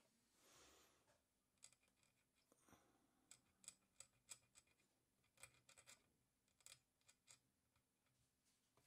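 Faint, irregular scratching and ticking of a hand-held steel preparation needle picking the rock matrix away from around a trilobite fossil.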